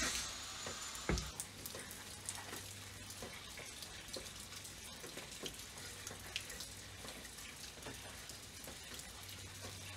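Faint running or splashing water with many small ticks through it, and a knock about a second in.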